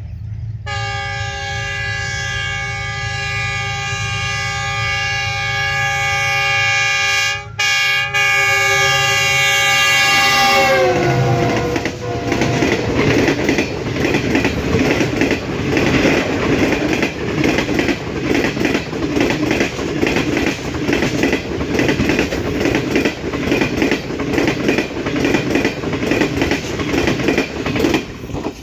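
A train sounds a long, loud multi-tone horn, broken briefly twice, and the horn's pitch slides down as it passes after about ten seconds. This is followed by the rumble and clickety-clack of the cars rolling by.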